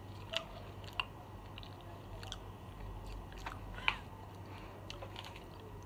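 A person chewing a jelly bean, with a few sharp mouth clicks and smacks.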